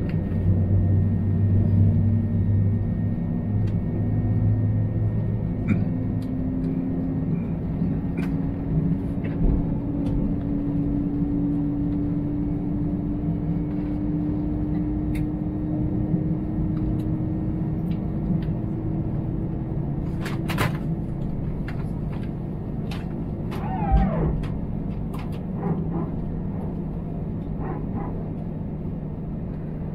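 Airbus A320 cabin noise while taxiing: a steady engine hum and rumble. One engine tone rises slowly in pitch through the middle of the stretch. A few light clicks and a short higher sound come later on.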